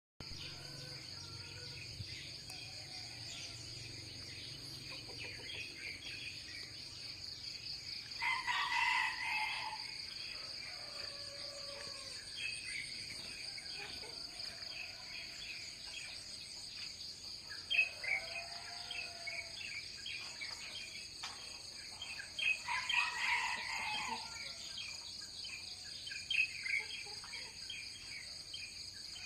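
Roosters crowing twice, about eight seconds in and again about twenty-two seconds in, with small birds chirping and tweeting throughout over a steady high-pitched drone.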